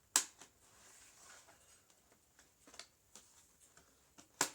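Sharp plastic clicks as the top case of an HP Pavilion G6 laptop is pried loose at its edge with a thin knife: a loud click just after the start, a few faint ticks, and another loud click near the end.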